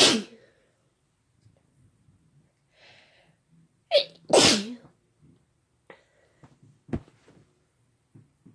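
Two loud human sneezes: one right at the start, and a second about four seconds in, where a short catch leads straight into a longer, louder burst. A short sharp knock follows about seven seconds in.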